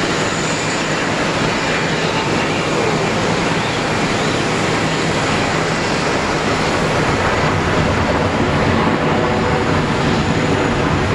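Airbus A380 jet airliner rolling out after touchdown: the steady rushing noise of its four jet engines, growing a little louder near the end.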